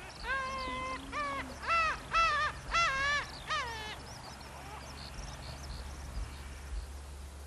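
Gulls calling: a run of about six loud, nasal mewing calls, the first one long and the rest short, each sliding up then down in pitch, stopping about four seconds in. Faint high chirps of small birds follow.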